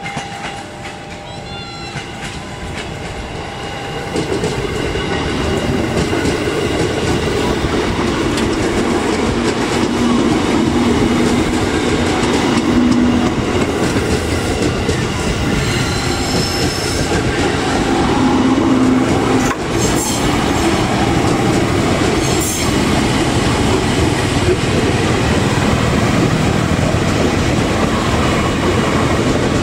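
Electric commuter train passing close by on the track: a steady rumble of wheels on rail that swells about four seconds in and stays loud, with a few sharp clacks and short high squeals from the wheels.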